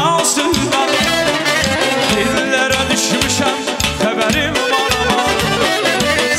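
Azerbaijani wedding (toy) pop medley played loud through a PA: backing music with a steady dance beat and a male singer's voice.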